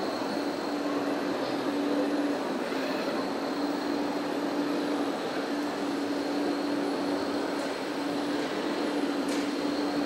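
Hydraulic pump of a radio-controlled Hydromek wheel loader model whining in on-and-off spurts of a second or two as the loader's arm and log grapple are worked, over steady background noise.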